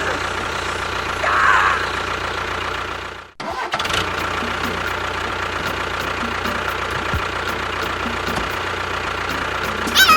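A vehicle engine sound running steadily, cut off abruptly just after three seconds in and picking up again straight away.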